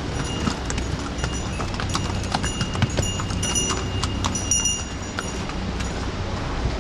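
Hooves of riding mules clip-clopping on a paved stone trail as they pass close by, with a high ringing note for a couple of seconds in the middle.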